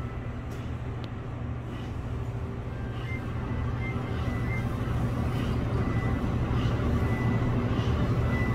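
A steady low hum that slowly grows louder, with a few faint short high beeps about three to four seconds in.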